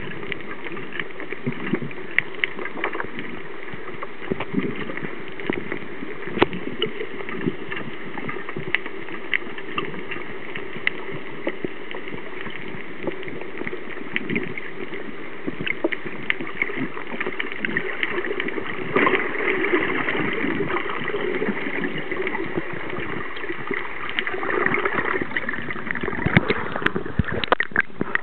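Underwater sound through a camera's housing: a steady muffled water hiss with scattered sharp clicks and crackles throughout, growing louder and busier about two-thirds of the way in.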